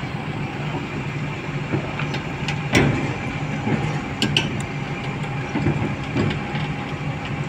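SANY SCC550A crawler crane's diesel engine running under load as the crane crawls up the ramps onto a lowboy trailer, with a few clanks from the steel tracks, the loudest about three seconds in.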